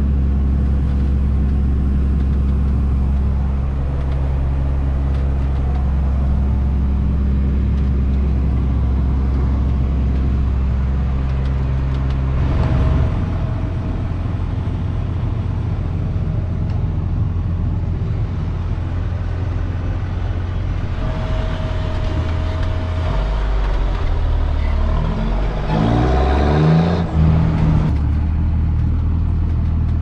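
John Deere 7710 tractor's six-cylinder diesel engine running, heard from inside the cab. The engine note changes about twelve seconds in and revs up briefly near the end.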